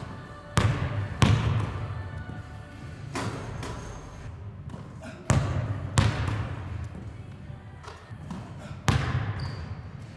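Basketball bouncing on a hardwood gym floor: about six sharp bounces spread over ten seconds, several in pairs, each followed by the echo of the large hall.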